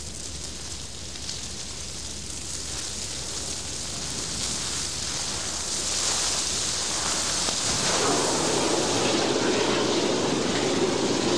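Steady rushing noise of a car burning, growing slowly louder. About eight seconds in, a louder rushing hiss joins as the automatic fire-suppression system discharges through its nozzles under the wheel arches.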